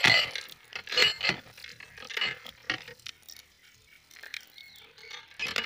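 Water gushing from a rusty metal pipe outlet and splashing onto the ground, gurgling in uneven surges with several louder splashes.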